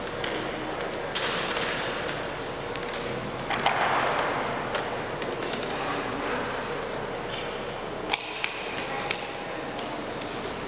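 Diabolo play with hand sticks being released and caught: a run of sharp clicks and taps, a couple of short whooshing rushes, and two louder knocks about eight seconds in.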